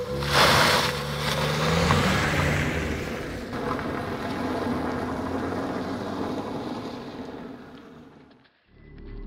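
Nissan Primera sedan pulling away on a gravel road: a sharp burst of tyre-on-gravel noise and a rising engine note as it accelerates, then a steady engine and gravel sound that fades as the car drives off, dying away almost to nothing near the end.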